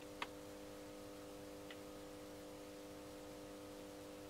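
Faint steady hum of fluorescent lamps over a light hiss, picked up through a Canon 70D camera's built-in microphone. Two small clicks come right at the start.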